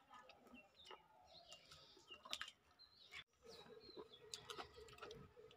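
Faint chirping of small birds, short high calls scattered through, with a few light clicks. About three seconds in, a faint steady hum starts.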